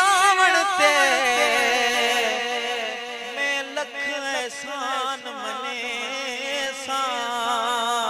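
Male voice singing a Sindhi naat, drawing out long, wavering, ornamented notes without a break.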